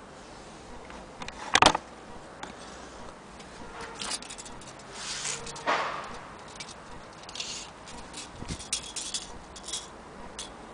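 Handling noise on an antique Singer sewing machine: a sharp knock about one and a half seconds in, then rustling, and a run of light metallic clicks and rattles near the end as a steel tape measure is handled against it.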